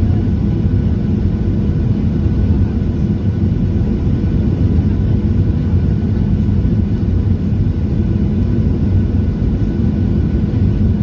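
Steady cabin rumble of a Boeing 737-900 in flight, engine and airflow noise heard from inside the passenger cabin, with faint steady whining tones above the low rumble.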